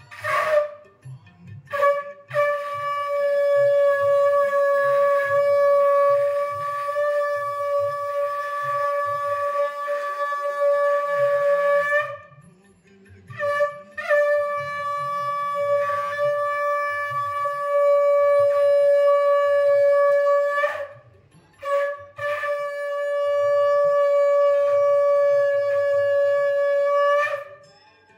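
Conch shell (shankh) blown for a Hindu puja: after a short first toot, three long blasts, each held on one steady tone, the first about ten seconds and the others shorter, with brief breaths between.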